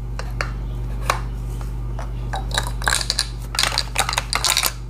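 Mossberg 500 pump-action shotgun and its shells being handled during loading: scattered sharp clicks and metallic clatters, coming thicker in the last two seconds, over a steady low hum.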